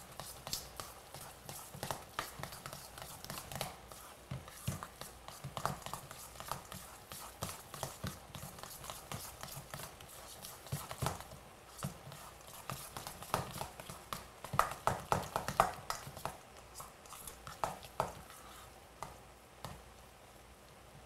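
A hand squeezing and mixing a wet cauliflower crust mixture in a stainless steel bowl: irregular soft squishes and taps against the bowl, busiest about two thirds of the way through, as the mash is worked until it binds together.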